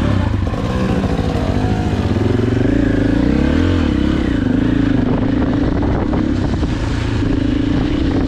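KTM enduro dirt bike engine running under way, its revs rising and falling a few seconds in, then holding fairly steady.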